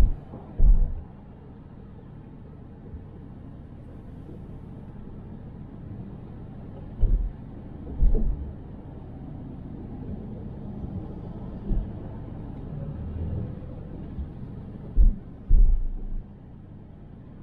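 A car driving, with a steady low rumble of road and engine noise. Several heavy low thumps break through it, some in pairs about half a second to a second apart.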